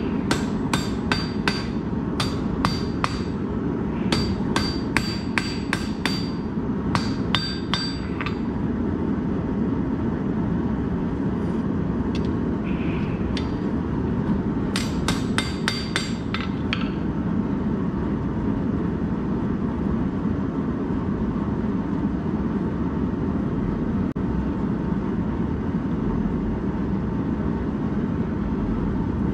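Hand hammer blows on a red-hot steel bar, about three a second, each with a bright metallic ring. They come in runs over the first eight seconds or so, then in one short run about halfway through, all over a steady low rushing noise.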